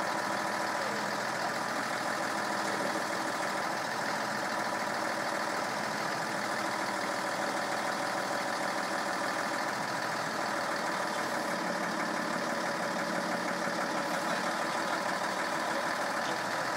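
Crane truck's engine running steadily, driving the Fassi loader crane's hydraulics as it lifts a load.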